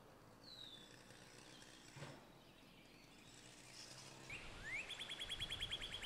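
A northern cardinal singing: a rising whistled slur runs into a rapid trill of short repeated notes, starting a little after four seconds in and carrying on. Before it there is only a faint outdoor background with a distant bird note.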